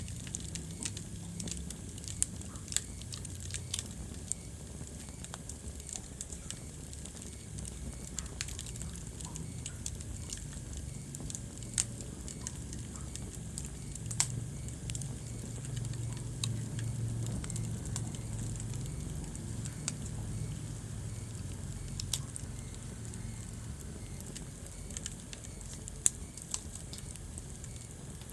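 Wood fire burning in a fireplace: a steady low rumble of flames with sharp crackles and pops every few seconds, the loudest at irregular moments through the stretch.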